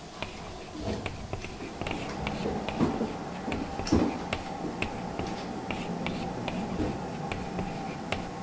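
Classroom room sound: scattered light clicks and taps over faint murmuring voices and a steady low hum.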